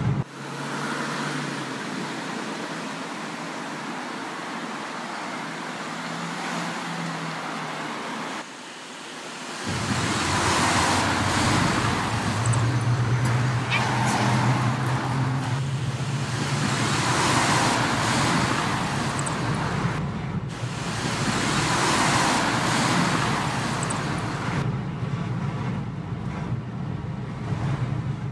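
Car traffic heard from inside a car: steady road and engine noise at first. After a change about 9 seconds in, the engine hums at idle while the car waits in queued traffic, and the noise of other vehicles swells and fades several times.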